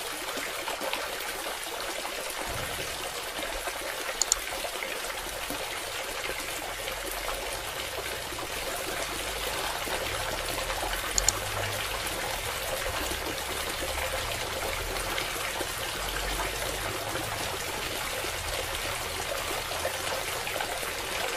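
Water from a small DIY submersible pump pouring out of a pipe spout in a steady stream and splashing onto bare soil. Two brief clicks are heard, about four and eleven seconds in.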